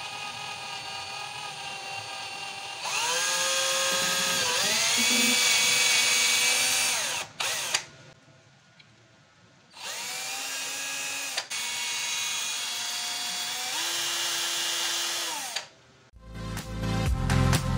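Cordless drill spinning and boring holes through the popsicle-stick and cardboard sides of a small model. It runs twice, for about four and then six seconds, rising in pitch as it speeds up each time and stopping between runs. Music comes in near the end.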